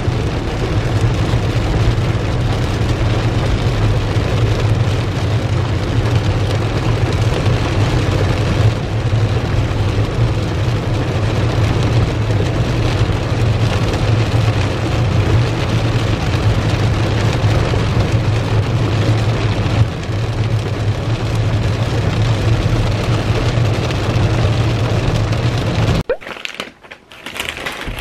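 Heavy rain pelting a moving car's windshield and roof, heard from inside the cabin over a steady low rumble of the car on the wet road. It cuts off suddenly near the end.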